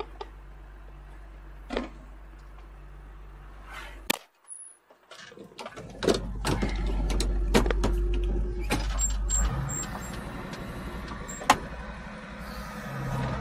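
A John Deere tractor's diesel engine drones inside the cab while it pulls a disc harrow across a field. About four seconds in, the sound drops out for a moment, then returns louder, with sharp clicks and knocks from the cab controls being handled.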